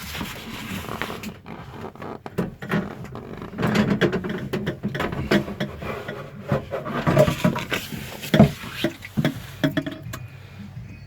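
Irregular knocks, clicks and scrapes of handling, things being moved and bumped around in a small space.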